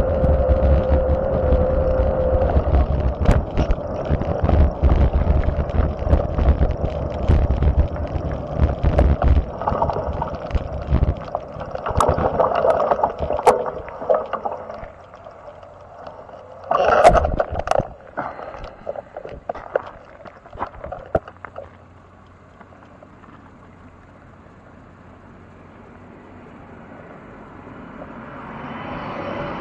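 Wind rumbling on the microphone of a moving camera, with scattered knocks and clatter. It then drops to a quiet hum, and near the end a car approaches and grows louder.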